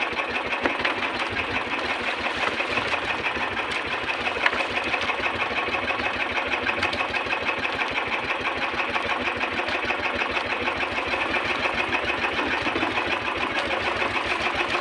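Small outrigger boat's engine running steadily at idle, with a fast, even chugging beat.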